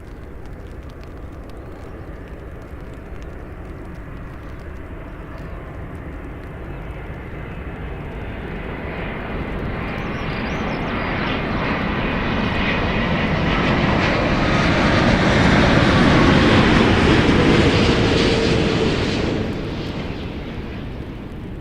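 Airliner engines passing close by: a rumble and whine that build over several seconds, peak about three quarters of the way through, then fall away fairly quickly, with a tone dropping in pitch as the aircraft goes past.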